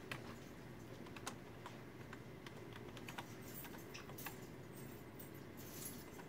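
Faint typing on a computer keyboard: scattered, irregular keystrokes, with a denser run in the second half.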